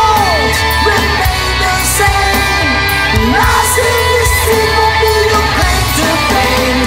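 Rock band playing: drums with regular cymbal hits, a steady bass, and a lead line that bends and slides up and down in pitch.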